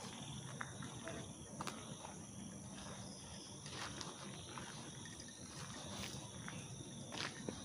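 Night insects such as crickets trilling steadily at a high pitch, with scattered light clicks and crackles.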